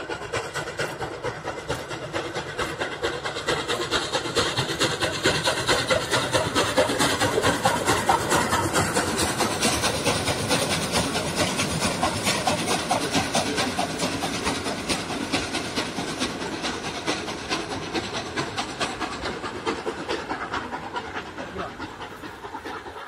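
Steam locomotive hauling a passenger train at speed, its exhaust beating in fast, even chuffs over the rumble of the train. It grows louder as it passes, loudest about a third of the way in, then fades as it draws away.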